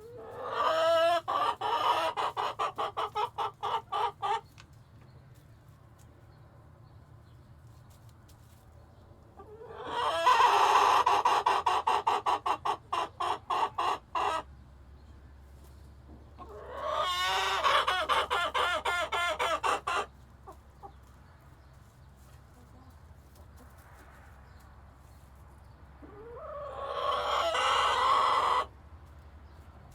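Chickens clucking in four loud bursts a few seconds apart, each a run of quick calls.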